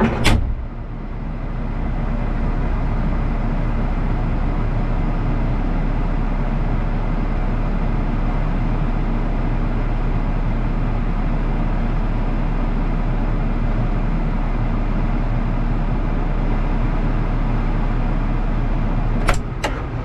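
Volvo EC60E mini excavator's diesel engine running steadily at a constant speed, heard from the operator's seat with the bucket held still. A sharp click at the very start and another near the end.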